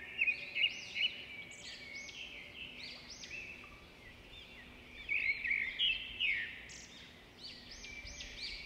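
Songbirds singing: many quick, high chirping notes overlapping, busiest and loudest about five to six seconds in.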